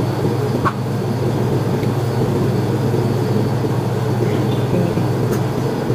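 Steady low machine hum, with a faint click or two.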